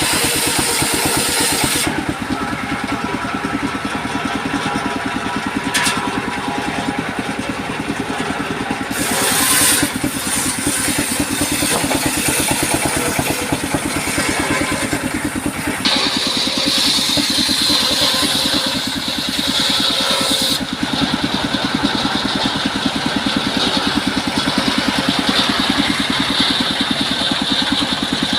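Small engine running steadily, driving a homemade portable circular saw for cutting wood. A higher-pitched hiss rides over it at times: at the start, briefly around the ten-second mark, and strongly through the last third.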